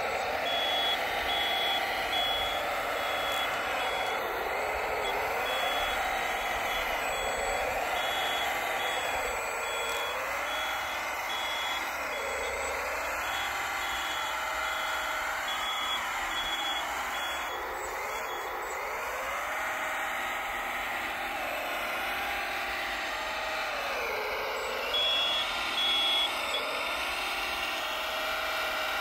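1/14-scale RC hydraulic wheel loader: its electric motors and hydraulic pump whine, rising and falling in pitch over and over as it drives and moves the bucket. A high reversing beeper pulses steadily through the first half and briefly again near the end.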